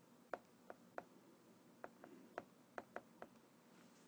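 About ten faint, sharp taps at irregular spacing on a tablet touchscreen as a word is handwritten on it.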